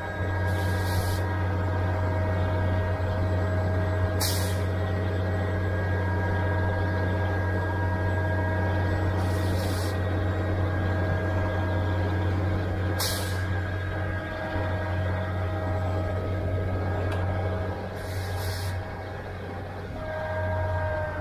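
Concrete pump truck's engine and hydraulics running steadily with a low hum and a held whine as the boom folds down, broken by short hisses every few seconds. Near the end the whine slides down in pitch as the machine slows.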